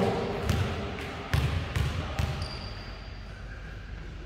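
A basketball bouncing on a hardwood court about four times in the first two seconds, dribbled before a free throw, then a quiet stretch while the shot is in the air.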